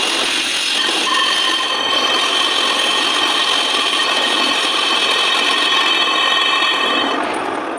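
A brake disc spinning on a metal lathe with a rough block held against its face, giving a steady rasping scrape over the lathe's running, with high thin ringing tones. It dies away near the end.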